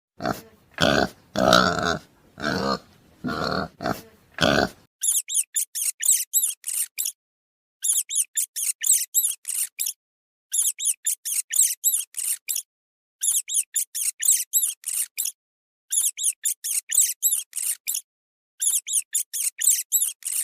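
An animal grunting in short pulses for about five seconds, then rapid, very high-pitched squeaking chirps in six bouts of about two seconds each, with short pauses between.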